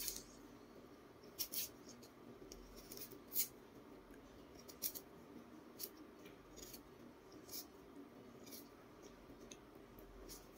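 A kitchen knife peeling the skin off a jicama: short, crisp scraping strokes at irregular intervals, roughly one a second, quiet overall.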